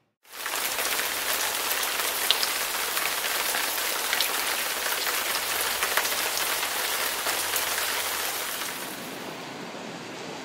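Heavy rain falling steadily, a dense hiss full of close drop impacts, starting abruptly a moment in. It grows softer and duller near the end.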